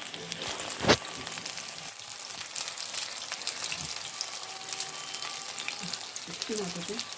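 Battered jeon frying in oil in a pan, a steady sizzle full of small crackles. One sharp knock about a second in.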